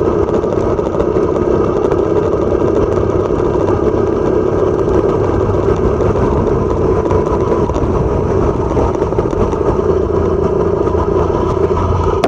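Motorcycle engine running steadily while riding along a road, with road and wind noise.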